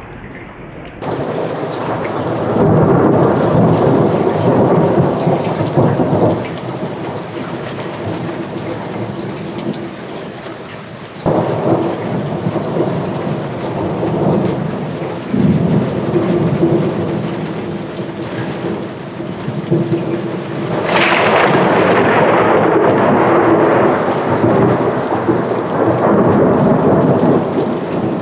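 Thunderstorm with steady heavy rain and repeated rolls of thunder. Rumbles break in suddenly about a second in and again around eleven seconds. The loudest, sharpest peal comes about twenty-one seconds in and rumbles on for several seconds.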